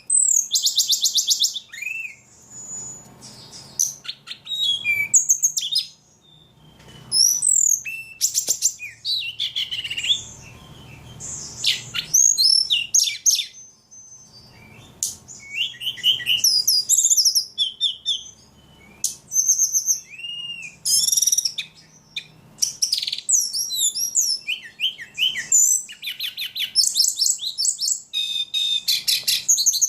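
A ledekan songbird sings almost non-stop in a fast, varied run of high chirps, trills and rapidly repeated notes, broken by short pauses.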